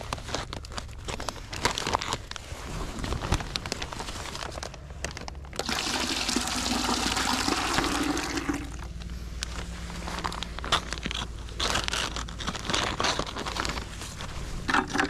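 Crinkling of a plastic sap bag and clicks as it is handled, then maple sap pouring out of the bag into a plastic bucket for about three seconds, stopping suddenly. More crinkling and clicks follow as the bag is handled again.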